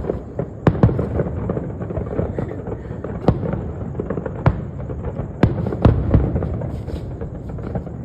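Fireworks going off: a dense, continuous crackle with several louder single bangs standing out, two about a second in and more spread through the rest.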